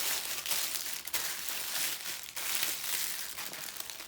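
Plastic packaging crinkling and rustling as it is handled, in uneven waves with short pauses.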